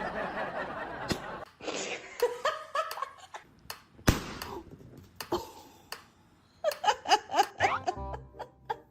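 People laughing, with a run of quick bursts of laughter near the end, over background music and a few sharp clicks.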